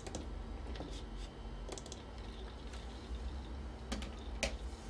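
A handful of sharp, separate clicks from an Apple ADB mouse button, including a quick double-click, as folders and the ClarisWorks application are opened on the Macintosh IIfx. A low steady hum runs underneath.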